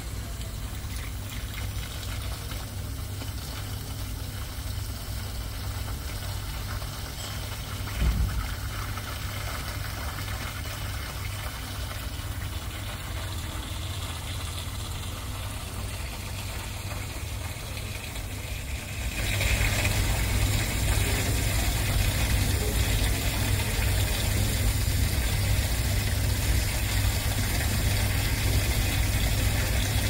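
Indoor water feature, a waterfall and stream, running steadily under a low hum. The rushing grows louder about two-thirds of the way through, and a single thump sounds about eight seconds in.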